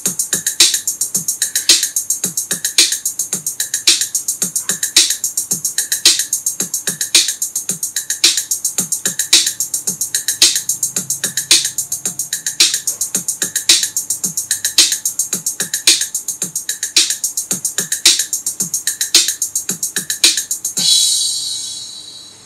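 Instrumental backing music for a children's English chant, with a steady beat: a strong stroke about once a second and lighter ticks between. Near the end it stops on a final ringing hit that fades away.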